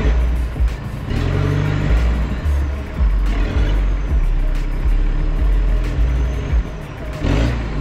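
Background music with a heavy bass line and a steady beat.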